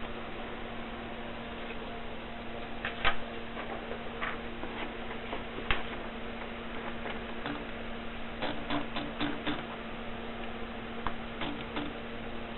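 Keys of a Triumph Contessa manual typewriter striking, typed slowly and unevenly: a few single clacks, then a quick run of about five and a short run of three. A steady electrical hum runs underneath.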